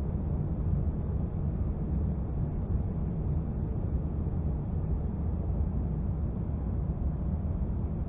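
Steady low rumble of a Boeing 767-300's engines and airflow heard inside the cabin.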